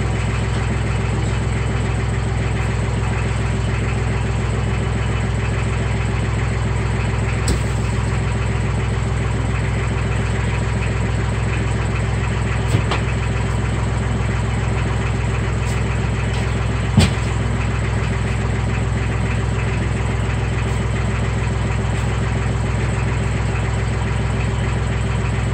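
Tractor engine idling steadily, with a few short sharp knocks over it, the loudest about two-thirds of the way through.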